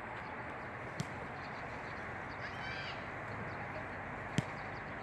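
Steady wind noise, with a short bird call about halfway through and two sharp clicks, one near the start and one near the end.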